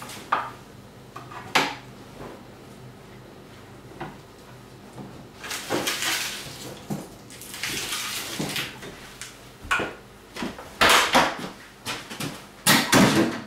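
Dishes and kitchen utensils being handled at a counter: a few separate knocks and clinks, then louder clattering in the last few seconds.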